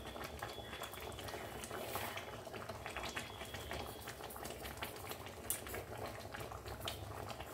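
Mashkalai (urad) dal with whole vegetables bubbling at a faint, steady simmer in a metal kadai, with a patter of small irregular pops.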